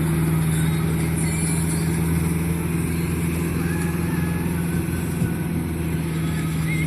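Landini Blizzard 65 tractor's diesel engine running at a steady, even speed, with no change in pitch.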